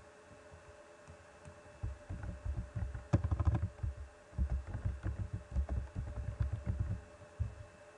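Typing on a computer keyboard: a quick, irregular run of dull keystroke thumps that starts about two seconds in and stops near the end.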